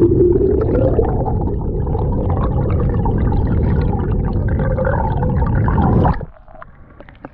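Camera microphone held under the lake surface from a boat: a loud, muffled underwater rumble and gurgle of water. It cuts off sharply about six seconds in as the camera comes up out of the water.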